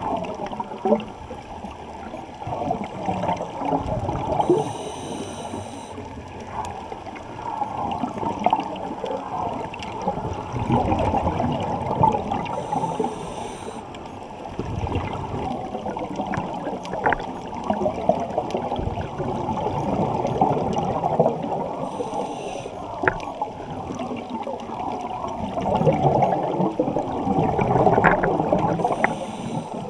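Underwater sound picked up through a camera's waterproof housing: muffled crackling, gurgling and bubbling of moving water.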